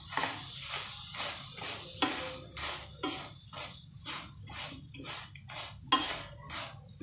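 Spatula stirring and scraping lumps of jaggery around a non-stick pan as they begin to melt, with a steady beat of about two strokes a second that background music with a tambourine-like jingle shares.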